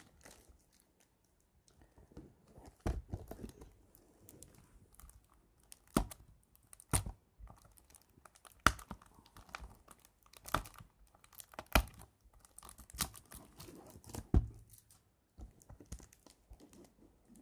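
Plastic shrink-wrap being picked at and torn off a DVD case, crinkling, with a dozen or so sharp clicks at irregular intervals as the case is handled.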